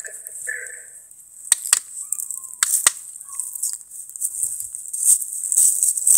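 Rustling and scuffling from hand-held camera jostling during rough play, with several sharp knocks between about a second and a half and three seconds in; the rustling grows louder near the end.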